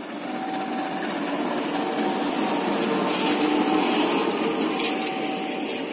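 Diesel-electric locomotive passing at close range, its engine running and wheels rolling over the rails, growing loudest about halfway through as the locomotive comes alongside. A short high tone repeats about every second and a half.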